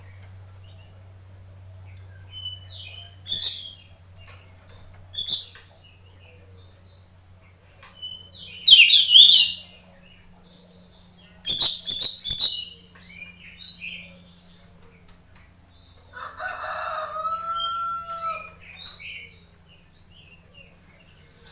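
Caged oriental magpie-robin (kacer) giving short, scattered high whistled calls and a burst of sharper notes, with a quick run of sharp clicks and wing flutters about halfway through. A rooster crows once, about three quarters of the way in.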